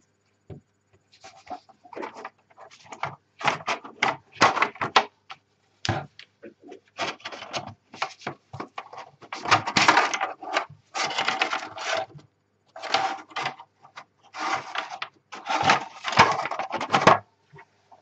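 Handling noise from a Honeywell Micro Switch keyboard's case being shifted and turned over on a cutting mat: irregular scraping and knocking that comes in clusters with short pauses.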